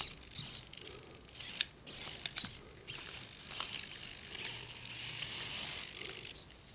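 Hitec HS-225BB hobby servos in a hexapod robot's legs whirring in short, high-pitched bursts, whining up and down in pitch as the legs move on power-up. The bursts stop near the end.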